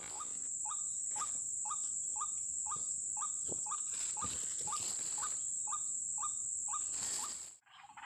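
White-breasted waterhen (ruak-ruak) calling: a steady series of short rising calls, about two a second, over a continuous high insect drone. Both break off briefly near the end.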